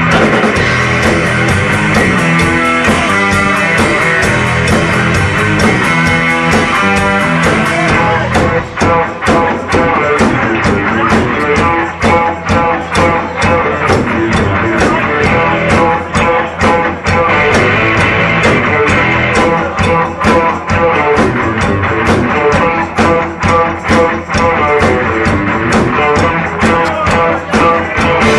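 Rock band playing an instrumental passage: electric guitar over a steady drum kit beat, with the arrangement shifting about eight seconds in.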